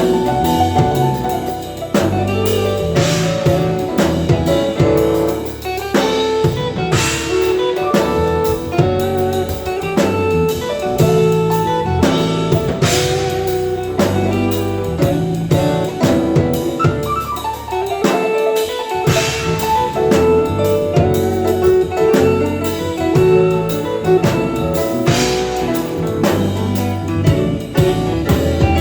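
A live band playing instrumentally at sound check, led by a drum kit, with a cymbal crash roughly every six seconds.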